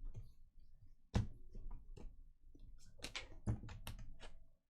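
Short, sharp clicks and taps of trading cards and plastic card holders being handled and set down on a table. One loud knock about a second in, then a quick run of clicks about three seconds in.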